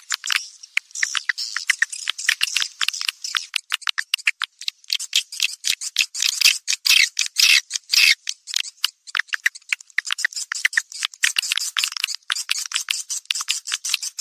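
Edible-nest swiftlets chattering: a dense, fast stream of sharp chirps and clicks that runs without a break and has no low end. It is a swiftlet-farming call-sound track of birds in breeding condition, played to lure swiftlets to a nest house.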